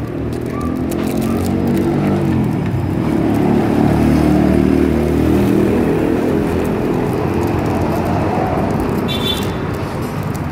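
Motor vehicle engine running close by, growing louder over the first few seconds and then easing off, as a vehicle passes or idles on the street. A brief high squeak near the end.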